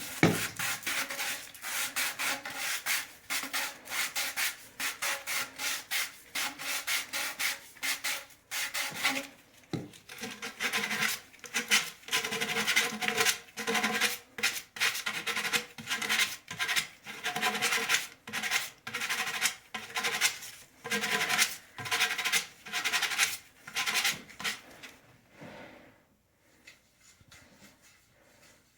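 Sandpaper rubbed by hand over the cut end of a drain pipe, cleaning up its rough edges in quick back-and-forth strokes, about two to three a second. The sanding stops a few seconds before the end.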